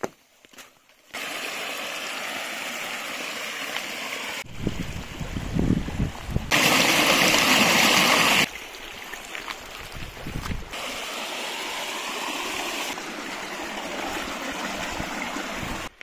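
Mountain stream running over rocks, in several short clips that cut abruptly from one to the next, starting about a second in. Loudest for about two seconds in the middle: water pouring off a small rock cascade into a plastic jug being filled.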